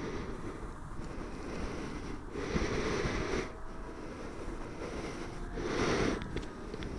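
Wind gusting over the microphone in two long rushes, at about two and a half and six seconds in. Under it is the faint, slowly gliding whine of a small electric RC plane motor flying high overhead.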